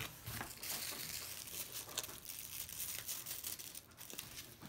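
Crinkling and rustling of protective packing wrap being pulled off a new handbag's handle and strap, a steady run of irregular small crackles.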